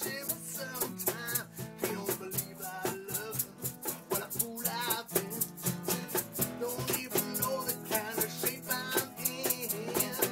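Acoustic guitar strummed with a man singing along, while an egg shaker keeps a steady, even rhythm over it.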